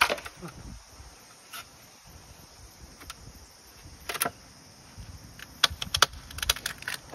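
Scattered sharp clicks and knocks of beehive equipment being handled, with a quick run of clicks and clatters near the end.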